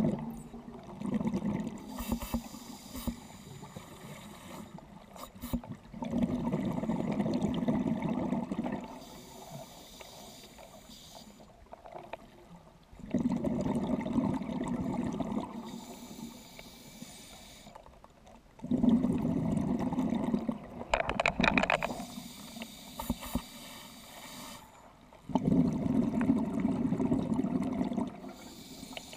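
Scuba regulator breathing heard underwater: four long bursts of exhaled bubbles, each about three seconds, coming roughly every six seconds, with quieter inhalation hiss between them.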